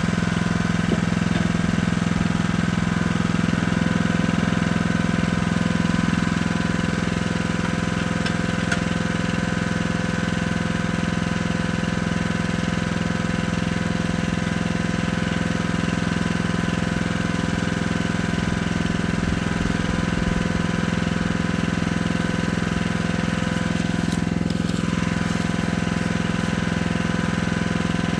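Jansen mini excavator's engine running steadily at an even speed, with no revving.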